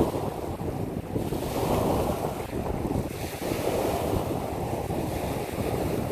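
Waves breaking and washing onto a pebble beach, swelling and easing every couple of seconds, with wind buffeting the microphone.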